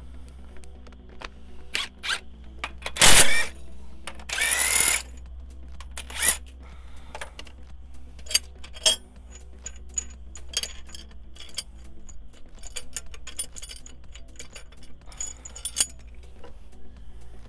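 Background music under the clicks and clinks of steel tool parts being handled on a diesel engine block. There are two short, loud bursts from a cordless drill, about three seconds in and again about four and a half seconds in.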